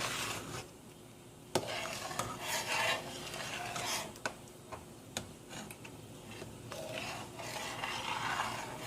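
A spoon stirring a pot of mung bean soup, rubbing and scraping against the pot in irregular strokes, with a few sharp clinks, the clearest about one and a half seconds in.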